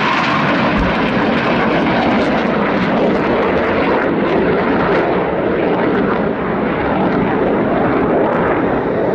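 Loud, steady jet noise from an F/A-18 Hornet fighter's engines.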